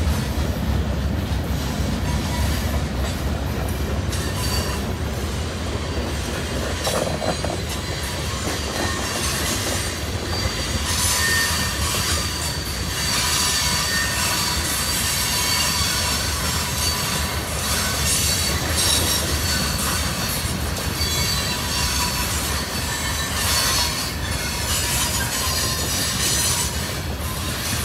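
CSX mixed freight train rolling past: a steady rumble of steel wheels on the rails, with thin high wheel squeal that grows stronger about halfway through.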